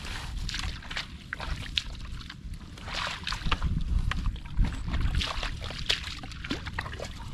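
Barefoot footsteps squelching and splashing through wet mud and dry rice stubble, with crackles of straw underfoot. Wind buffets the microphone with a low rumble.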